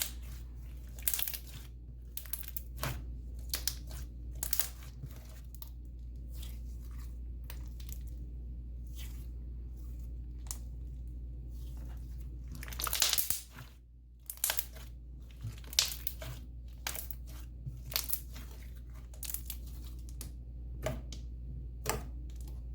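Hands squishing and stretching a thick, snow-textured slime, giving irregular crackles, clicks and pops, with a denser run of crackling about halfway through. A steady low hum runs underneath.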